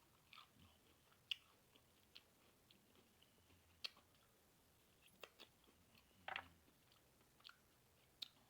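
Faint close-up sounds of a person chewing and biting food: scattered soft mouth clicks and small crunches, with a longer crunch about six seconds in.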